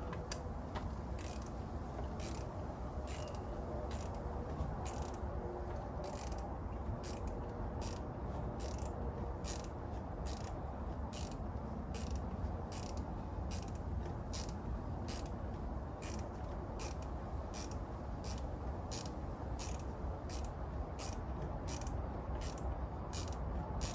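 Hand ratchet wrench clicking steadily, about two clicks a second, as it is swung back and forth on an ignition coil hold-down bolt of a 5.7 Hemi engine. A steady low hum lies underneath.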